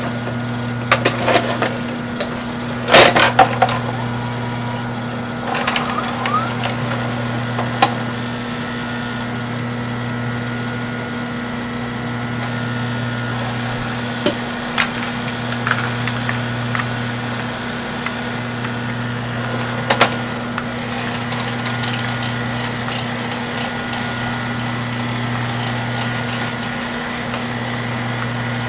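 VCR transport of a Samsung DVD-V9800 DVD/VCR combo: clicks and clunks as a VHS cassette is inserted and pulled into the loading mechanism in the first several seconds, over a steady mechanism hum that dips and returns a few times. Two more sharp clicks come about two-thirds through, after which a faint rapid ticking joins the hum.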